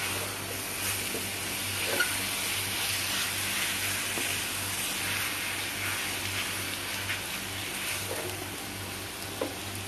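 Banana slices sizzling in bubbling palm-sugar and butter caramel in an enamel pan, stirred with a wooden spatula that knocks against the pan a couple of times.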